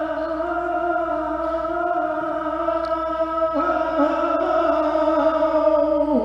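A lone voice sings a saeta, holding long, wavering, melismatic notes. The pitch steps down about three and a half seconds in and again at the end of the phrase.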